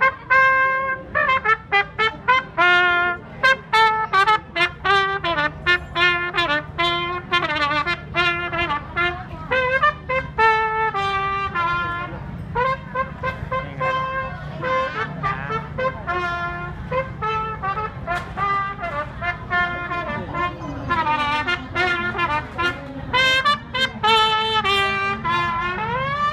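Trumpet playing a lively tune of short, separate notes, with a run of quicker notes in the last third and an upward slide at the end.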